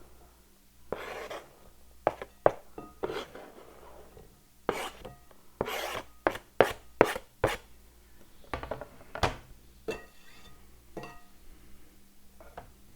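Irregular knocks and scrapes of kitchen food prep: a dozen or so sharp knocks of a utensil on a board or bowl, closest together around the middle, with rubbing and scraping between them.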